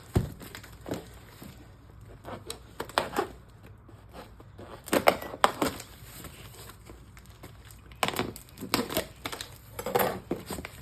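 Plastic packaging crinkling and rustling in short irregular bursts, with a few light clicks, as items are handled and unpacked from a shipping box.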